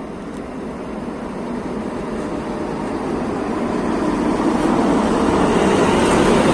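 Passenger train hauled by a ChS4T electric locomotive rolling along the track as it departs, its steady rumble and wheel-on-rail noise growing louder throughout.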